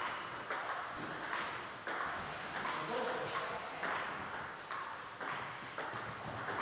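Table tennis balls clicking off bats and tables in an irregular patter, about two hits a second, from play at several tables in the hall.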